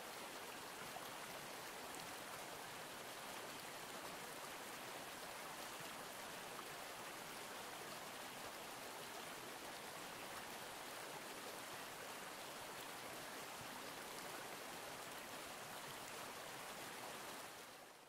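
Steady rushing of a flowing stream, fading in at the start and out at the end.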